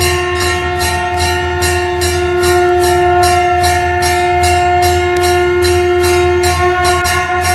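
Conch shell (shankh) blown in one long steady note while a temple bell is rung rapidly, about four strikes a second. The conch note wavers and breaks briefly near the end.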